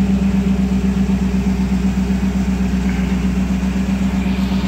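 V8 engine with a four-barrel carburetor in a 1989 Jeep Wrangler, which the seller takes for a 302, idling steadily with a fast, even pulse.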